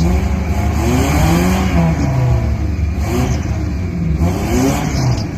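A vehicle engine revving up and down several times over a steady low rumble.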